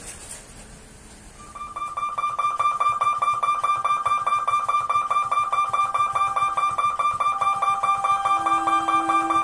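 Faint background noise, then about a second and a half in, instrumental music starts: fast, evenly repeated notes over a held tone.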